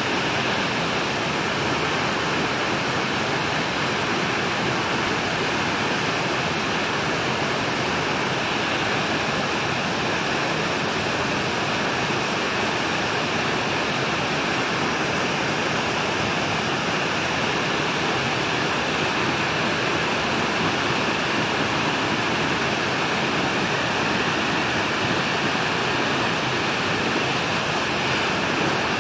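Waterfall cascading over rock ledges into a pool: a steady, unbroken rush of falling water.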